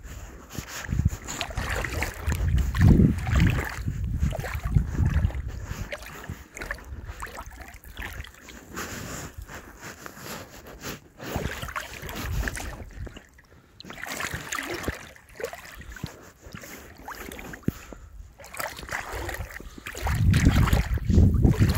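Rubber waders wading through shallow reedy water: irregular splashing and sloshing as each leg moves, loudest about two to five seconds in and again near the end.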